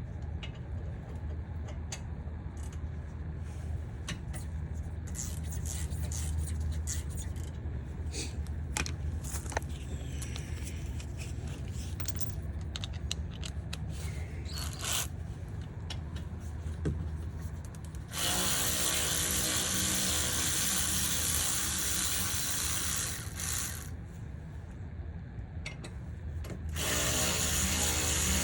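Light clicks and tool handling, then a power tool running in a long burst of about five seconds and again near the end, turning a T45 Torx bit socket to back out the brake caliper guide pins.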